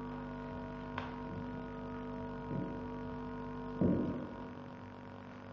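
Steady mains hum and buzz from plugged-in guitar and bass amplifiers, with a click about a second in and two thumps. The second, louder thump comes about four seconds in, and after it the hum drops.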